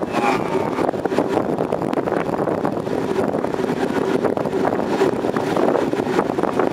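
Steam-hauled passenger train running along the track, its steady rolling noise heard from an open coach window with wind buffeting the microphone.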